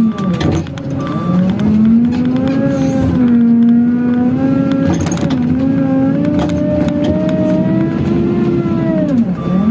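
JCB wheel loader's diesel engine, heard from inside the cab, running under load with its revs rising and falling as the machine is driven and worked. The revs drop sharply about half a second in and again near the end, with a few short knocks and rattles.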